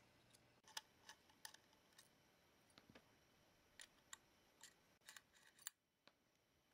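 Faint, irregular small clicks and taps of laptop parts being handled, about a dozen over five seconds, stopping near the end.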